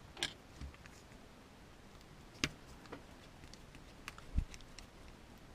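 A few light, scattered clicks and ticks from handling the small plastic wheel and tyre of a Mini-Z RC car, with one dull low bump about four seconds in.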